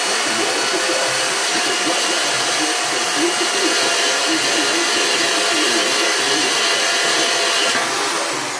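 Corded electric drill running steadily under load as it bores through a metal plate. Near the end the trigger is let go and the motor winds down with a falling whine.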